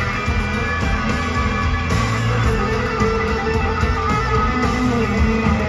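Live country-rock band playing in an arena, with electric guitar prominent.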